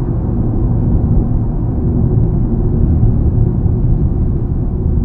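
Road noise heard inside the cabin of a Mitsubishi Xpander: its tyres give a steady low rumble on a slightly rough stretch of asphalt highway.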